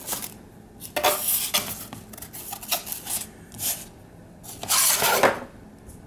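Stiff Formica laminate panels being handled and folded shut on a tabletop: a run of short scrapes and clatters, with a longer rasping burst near the end.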